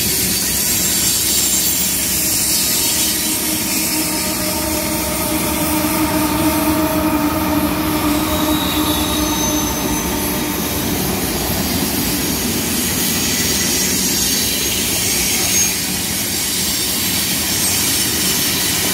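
Freight train cars (covered hoppers and tank cars) rolling past with a steady rumble and clatter. Drawn-out wheel-squeal tones rise in the middle, with a higher whine from about halfway through.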